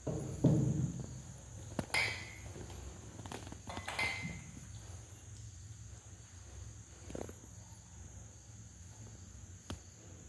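Kittens play-fighting on a tile floor, scuffling and rustling in a loose plastic mesh, with scattered thumps and scrapes of paws. The loudest knock comes about half a second in.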